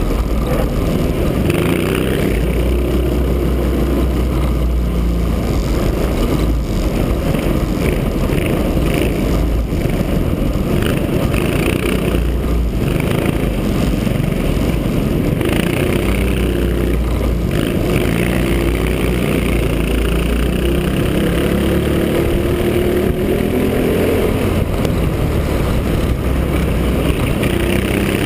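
Race kart Honda GX160 four-stroke engines running at speed on a circuit, heard onboard as a loud steady drone. The engine note climbs in the last few seconds as the karts accelerate.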